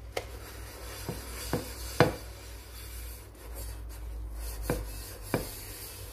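Kitchen sponge scrubbing the inside of a cooking pot in soapy water, a steady rubbing with a few short knocks of the pot, the loudest about two seconds in.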